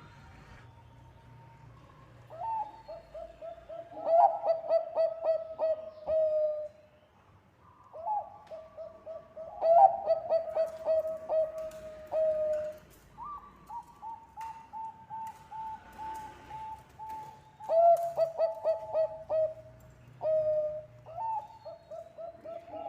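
Bangkok perkutut (zebra dove) cooing: phrases of rapid, evenly spaced short coos, each opened by a higher held note, repeated about five times with short pauses between.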